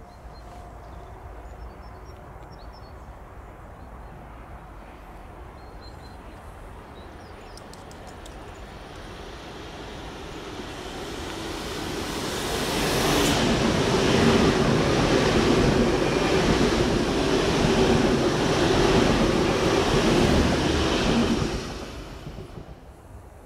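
Train approaching and passing at speed. The rumble builds over several seconds, stays loud for about eight seconds as the train goes by, then falls away quickly as it clears.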